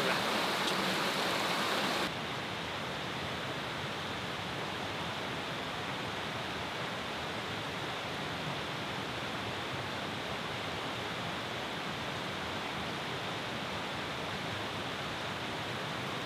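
Small rocky woodland brook running steadily over stones. About two seconds in, the sound drops suddenly to a quieter, duller rush.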